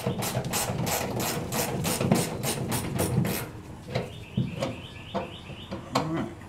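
Ratchet wrench clicking fast and evenly, about five clicks a second, as a short bolt on the truck's front clip is backed off by hand. The clicking stops about three and a half seconds in, and a few scattered metal clicks follow.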